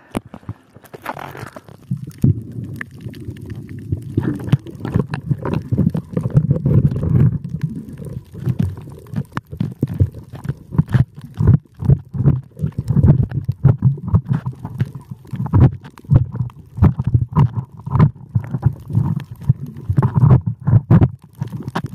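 Muffled underwater noise picked up by a camera below the sea surface: a low rumbling and gurgling that swells and fades in uneven pulses, with many sharp clicks and knocks scattered through it.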